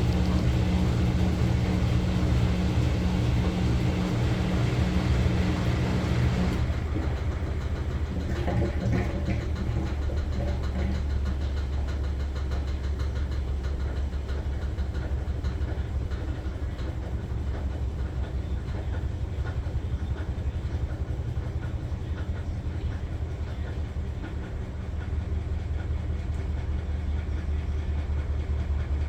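Maytag Bravos top-load washer running with a steady low motor hum. About six seconds in, the higher-pitched part of the hum cuts off and a lower, rougher churning rumble carries on.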